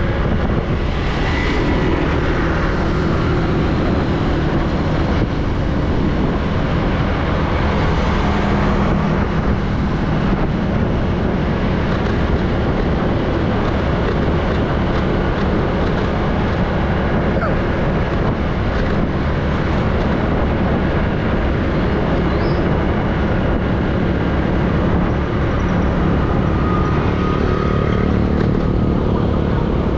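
Steady road noise from riding a motorbike through city traffic: a low wind rumble on the microphone over engine and tyre hum, with other motorbikes around.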